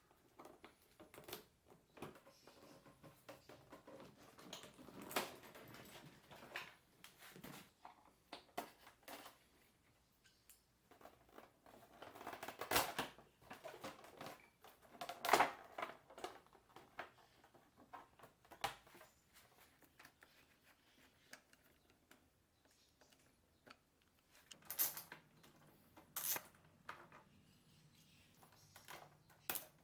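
Scattered clicks, knocks and light rustling of hand-tool work on motorcycle parts, with two louder clattering knocks near the middle and a few more sharp clicks near the end.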